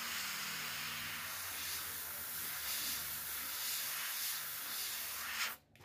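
Airbrush spraying thinned brown paint: a steady hiss of air and paint that cuts off about five and a half seconds in as the trigger is released.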